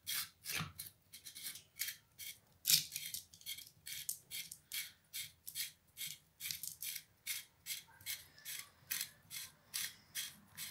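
The rotor of a seized combi boiler circulation pump being twisted back and forth by hand in its housing: a quick, even series of short scratchy rubbing strokes, about three or four a second. The rotor had stuck from standing dry, and the strokes work freshly poured oil in to free it.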